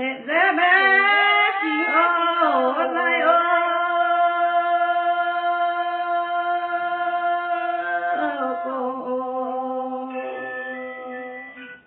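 Women singing a lượn folk song in the Red Dao (Iu Mien) language, unaccompanied: one long drawn-out phrase with held notes that steps down lower about eight seconds in.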